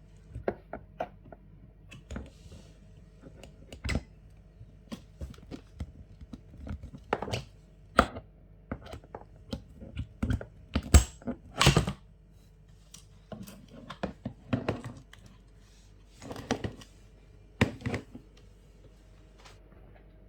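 Irregular clicks, knocks and a few short scraping rustles, the handling of switches and fittings on the Champion 8200i dual-fuel inverter generator. The engine does not start or run.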